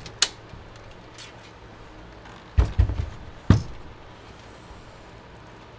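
Fractal North PC case being handled and set upright on the desk: a click near the start, then a cluster of dull thumps about two and a half seconds in and one more a second later.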